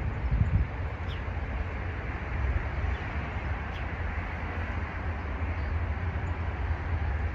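Steady low rumble of a train hauled by two T-class diesel locomotives, with a few faint short bird chirps.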